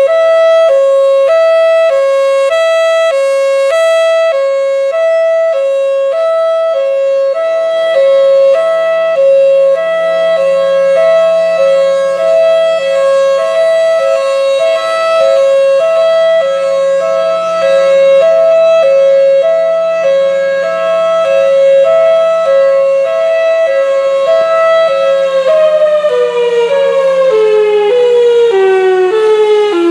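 Federal Signal Thunderbolt 1003 outdoor warning siren sounding its hi-lo (fire) signal, loud, switching evenly between a high and a low tone. About 25 seconds in, both tones start gliding downward as the siren winds down, still alternating.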